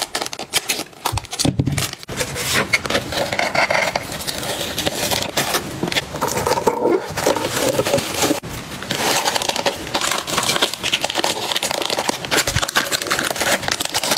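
Plastic packaging crinkling and rustling under hands: bubble wrap and clear cellophane bags being handled and pressed into a cardboard box, a dense run of crackles with no pause.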